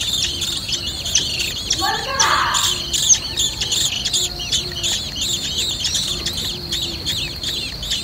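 Nestling songbirds begging from the nest with rapid, repeated high chirps, about four or five a second. A louder, lower call breaks in briefly about two seconds in.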